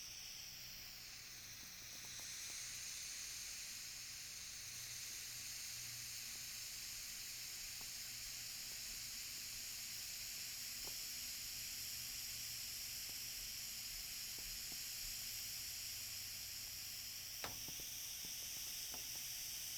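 Air being pumped: a steady high hiss of rushing air that grows slightly louder about two seconds in, with a single faint click near the end.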